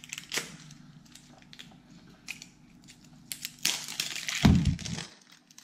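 Crinkling and crackling of plastic wrapping being peeled off a toy ball, with scattered clicks, a louder stretch of crinkling about three and a half seconds in, and a dull thump soon after.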